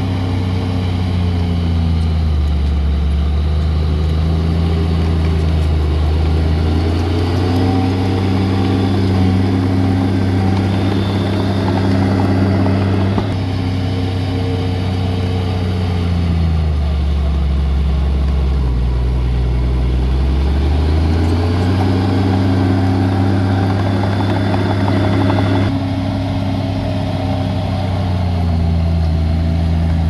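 Heavy diesel earthmoving machinery engine running, its pitch climbing and dropping several times as it is throttled up and down under load. The sound changes abruptly twice.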